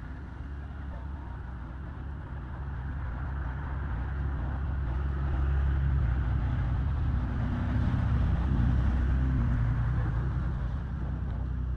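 Low engine rumble of a motor vehicle. It swells from about four seconds in and eases off again near the end.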